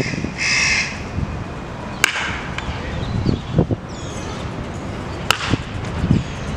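Baseball bat hitting pitched balls twice, about three seconds apart, each a sharp crack. A short rushing noise comes about half a second in.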